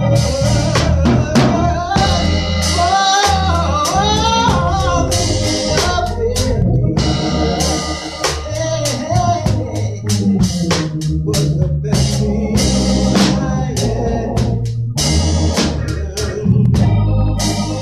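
Live gospel band music: a drum kit keeps a steady beat over low bass and keyboard. About two seconds in, a melodic line bends up and down in pitch for a few seconds.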